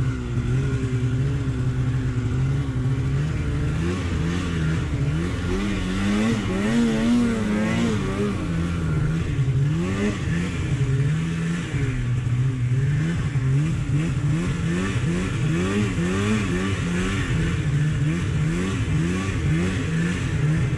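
Snowmobile's two-stroke engine running under load, revving up and down over and over as the throttle is worked; in the second half the rises and falls come quicker, several each second.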